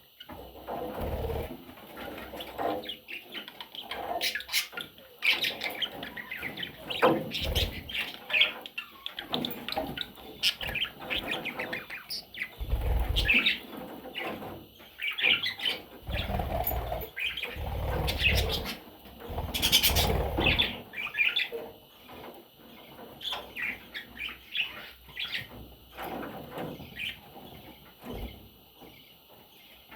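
Budgerigars chirping in many short, scattered calls, with several low thumps or wing flutters among them.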